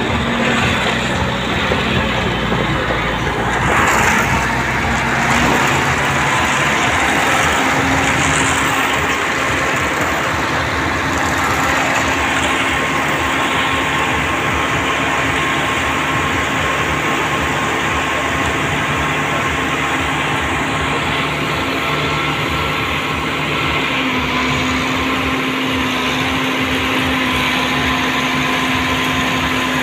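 Diesel engine of an Ajax Argo 2500 self-loading concrete mixer running steadily while the mixer drum turns at the chute. The engine note rises slightly about four-fifths of the way through.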